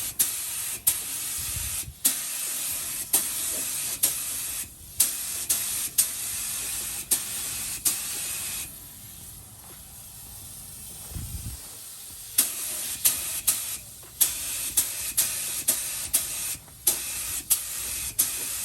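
Compressed-air paint spray gun hissing as candy paint is sprayed, the air cutting off briefly again and again between trigger pulls, with a quieter stretch in the middle.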